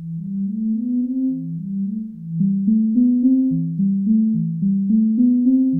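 Roland SH-32 synthesizer playing a repeating sequence of low sawtooth notes, about three or four a second, with a dull, muffled tone. About two seconds in, the envelope settings are moved and the notes turn from smooth and held to short and plucky, each with a sharp start and a quick fade.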